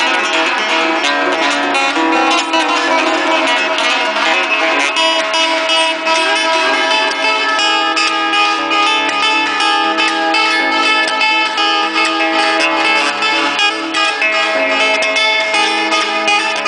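Acoustic guitar strummed, a steady run of chords played live.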